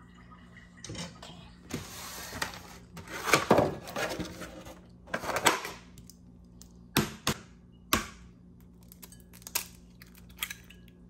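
Kitchen handling noise as a fresh egg is fetched, then a few sharp taps of the egg against the rim of a ceramic bowl, cracking the shell, followed by light ticks as the shell is pulled apart over the bowl.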